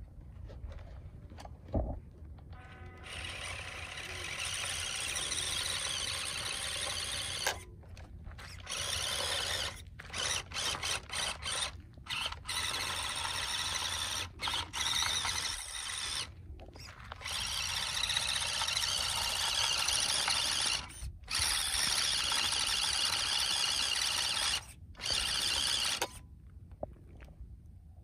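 Small electric motors and gearboxes of two RC trucks whining at full throttle as they pull against each other on a tow line. The whine starts about three seconds in and cuts off and restarts abruptly many times, in quick stabs around the middle, as the throttle is released and reapplied. It stops a couple of seconds before the end.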